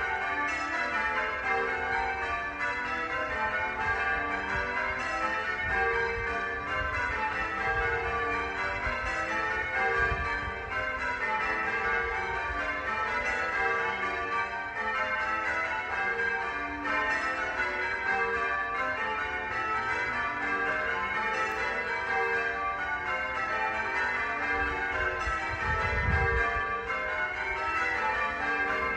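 Several church bells ringing in a steady peal, struck one after another in quick succession with their tones overlapping.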